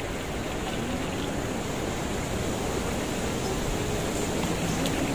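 Steady rushing wind noise buffeting the microphone, with faint distant voices.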